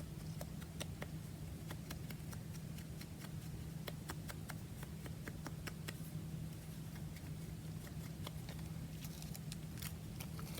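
Light, irregular tapping and dabbing on card as ink is applied to a paper tag, over a steady low hum.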